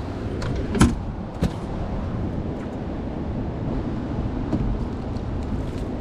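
A few sharp knocks and clatters in the first second and a half as a landing net's aluminum handle is picked up and bumps about the aluminum boat, over a steady rushing background of water and wind.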